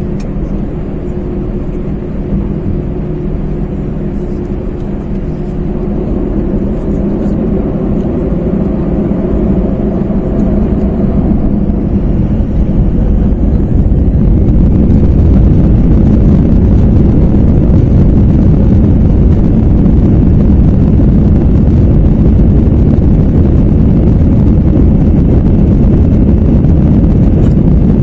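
Airbus A321's CFM56 jet engines, heard from inside the cabin, spooling up to take-off thrust. Their hum swells over the first half into the loud, steady rumble of the take-off roll.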